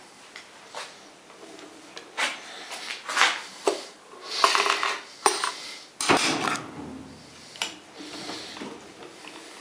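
Irregular clinking, knocking and scraping of hard objects being handled and set down, with the busiest, loudest clatter about halfway through.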